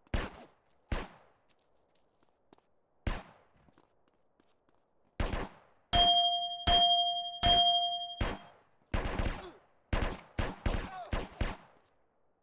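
A series of sharp knocks or hits, irregularly spaced. In the middle come three ringing metallic dings about 0.7 s apart, each holding a clear tone before it dies away. A quicker cluster of hits follows near the end.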